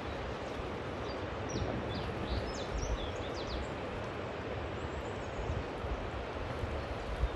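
Steady wind noise buffeting the microphone, with gusty low rumbles. A quick run of short, high chirps comes between about one and a half and three seconds in.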